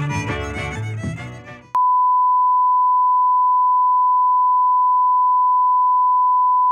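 String music fades out, then a steady, single-pitched test-tone beep, the reference tone that goes with colour bars, starts abruptly about two seconds in and holds at one level until it cuts off.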